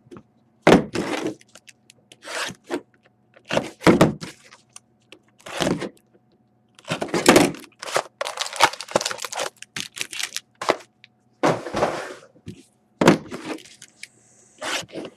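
A trading card hobby box being handled and opened by hand on a table: a string of irregular knocks, scrapes and crackles as it is picked up, set down and its packaging worked open.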